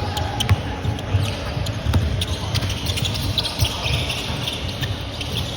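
Basketball bouncing on a court floor as dull thumps at uneven intervals, with short high squeaks of sneakers and voices in the background.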